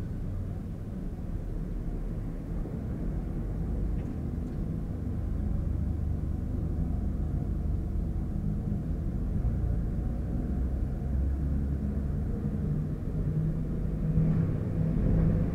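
Steady low rumble of surrounding noise, as heard through the ear cup of Sony MDR-1000X headphones switched on with active noise cancelling off, so their microphones pass the outside sound through.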